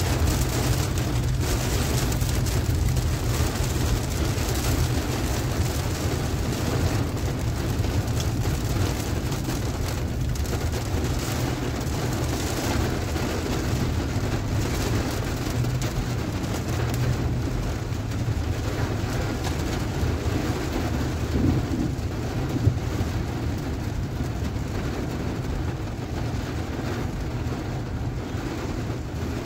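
Heavy rain falling on a car's roof and windscreen, heard inside the cabin, over a steady low rumble. The rain hiss eases a little near the end.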